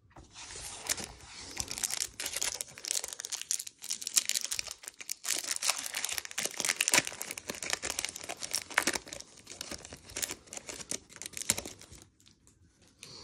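Foil wrapper of a Pokémon booster pack crinkling and tearing as it is opened by hand, with irregular crackles that fade out shortly before the end.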